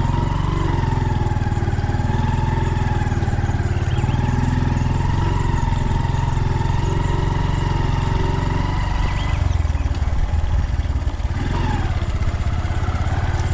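Motor vehicle engine running steadily under way, with a whine over the engine note; the pitch drops off about nine seconds in and picks up again near the end.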